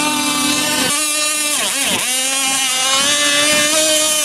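Petrol engine of a radio-controlled model speedboat running at high revs, a steady high-pitched whine. Its pitch dips sharply and climbs back about one and a half to two seconds in.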